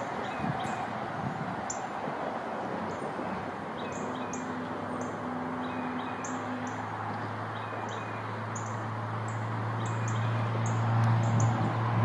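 Small songbirds giving short, high, downward-slurred chip calls again and again at an uneven pace, scolding a perched red-shouldered hawk. A low steady hum comes in partway through and grows louder near the end.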